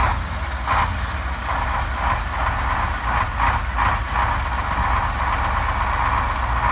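Heavy truck engine running with a steady low rumble, with uneven pulses of mid-range noise over it.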